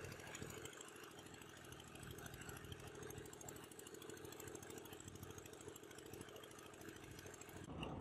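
Boat engine idling faintly and steadily, a low even pulsing.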